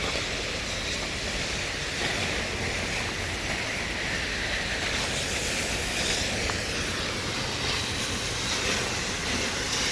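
Steady rushing of a tall waterfall pouring down a rock cliff.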